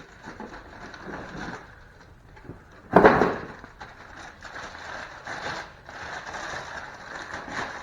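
A new wheel hub assembly and its packaging being handled: rustling and scraping, with one sharp knock about three seconds in, which is the loudest sound.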